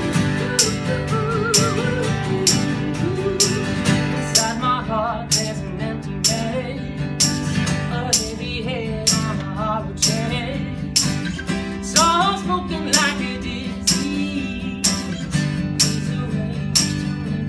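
Live acoustic band music: two acoustic guitars strumming chords, with a shaker keeping a steady beat about twice a second and a wavering wordless melody line over it.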